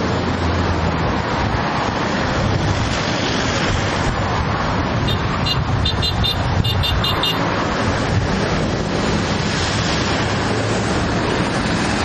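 Concrete mixer trucks' engines running together with a steady low hum under a loud wash of noise. About halfway through comes a quick run of short, high beeps in small clusters.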